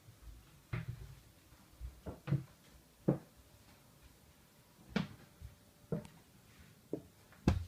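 Thuds and knocks of someone climbing the solid red-oak storage-cabinet stairs and moving onto the wooden loft floor: about ten irregular knocks, some in quick pairs, the loudest near the end.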